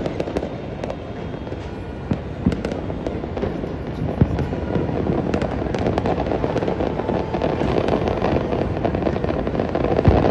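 Many fireworks going off at once: a dense, continuous crackle of pops and bangs, with a few louder bangs standing out, growing a little busier in the second half.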